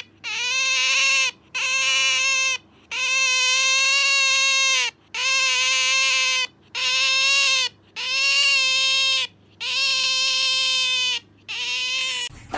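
An otter giving eight long, high-pitched calls in a row. Each call holds a steady pitch for one to two seconds, with short breaks between them.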